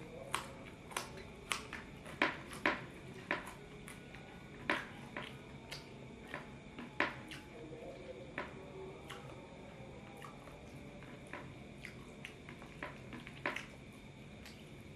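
A man eating noodles close to the microphone: a run of sharp, irregular clicks and smacks of chewing, about two a second at first, thinning out after about ten seconds.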